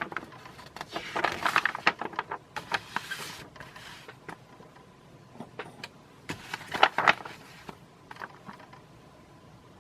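Paper catalog being handled, with rustles, scrapes and sharp clicks as the pages are moved and turned, in two spells: one during the first few seconds and a shorter one about seven seconds in.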